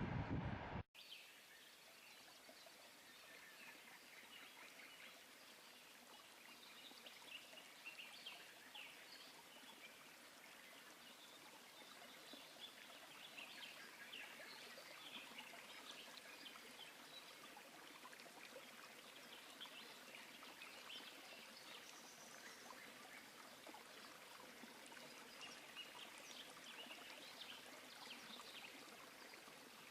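Music cuts off abruptly about a second in. Then comes a faint riverside ambience: an even rush of running water with many short, high bird chirps and calls scattered through it.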